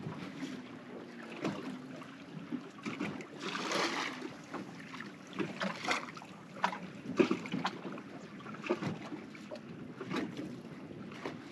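Small waves slapping and lapping against a fishing boat's hull, with wind on the microphone and scattered light knocks; a longer splashing wash about four seconds in.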